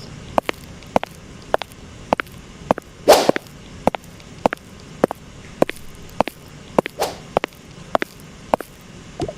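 Footsteps walking at about two steps a second, with a brushing swish twice, at about three and seven seconds in.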